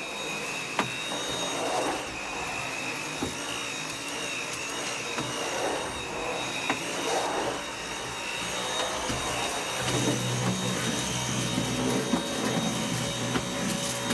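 Dyson V8 cordless stick vacuum cleaner running while vacuuming: a steady high-pitched whine with a slightly wavering tone over a hiss of air, with a few faint ticks. A lower hum grows stronger about ten seconds in.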